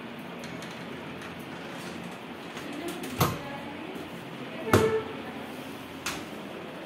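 Modular kitchen cabinet door being shut by hand: a knock about three seconds in, then a louder clack with a short ring a second and a half later, and a lighter tap near the end.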